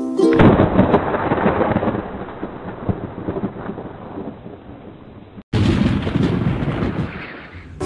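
Thunder-like rumbling sound effect with crackle, twice: the first starts loud about half a second in and dies away over several seconds, and the second starts abruptly about two-thirds of the way through and fades again.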